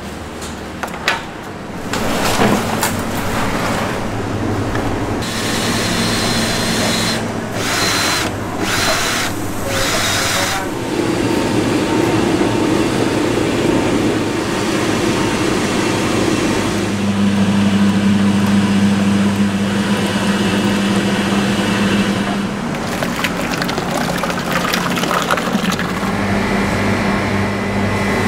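Electric motors of food-processing machines running: a steady hum that shifts pitch several times, with scattered clicks and brief clattering bursts.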